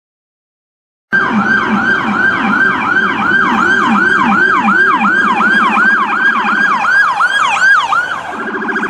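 Electronic siren from a PA3000 400 W siren amplifier and speaker, cutting in abruptly about a second in. It sounds a rapid, repeating swept tone, about three sweeps a second, that quickens and changes to a steadier pulsing tone near the end.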